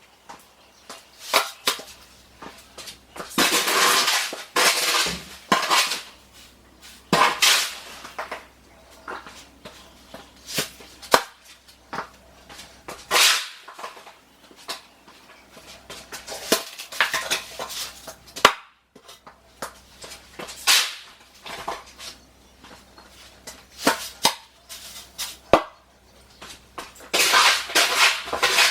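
Irregular scrapes and sharp metallic clinks of hand tools working mortar, such as a trowel scraping and tapping, with a few longer scraping strokes a second or so long.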